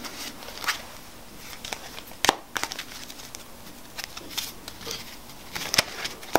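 Deck of playing cards worked between the hands in a cardistry flourish: packets cut, swung and squared, giving scattered light clicks and snaps. The sharpest snap comes a little after two seconds in.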